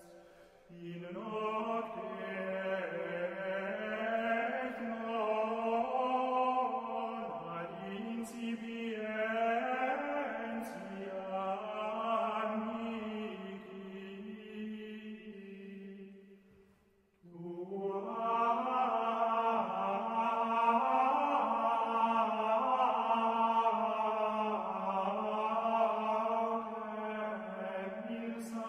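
Slow religious chanting by voices, with long held notes that glide gently in pitch. It breaks off briefly about seventeen seconds in and then resumes a little louder.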